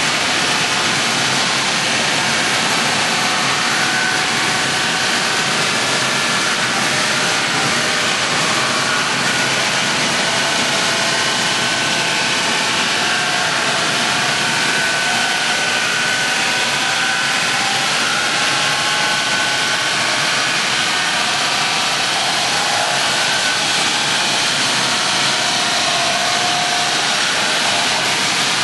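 Wood chipper running with a steady, unbroken mechanical noise.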